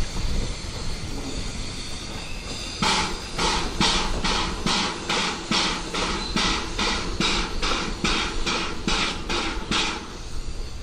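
Ivatt Class 2MT 2-6-2T steam tank locomotive No. 41313 pulling away, its exhaust beating in even chuffs, a little over two a second. The chuffs start about three seconds in.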